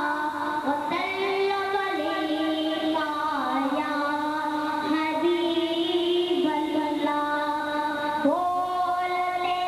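A boy singing a naat solo into a microphone, one voice alone, in long held notes that slide from one pitch to the next.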